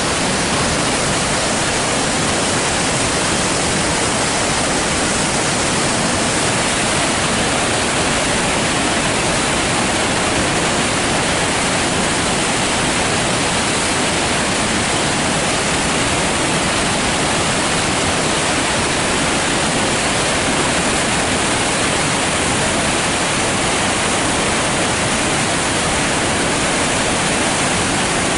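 Flood-swollen river rushing through a narrow rock gorge: a loud, steady rush of whitewater rapids.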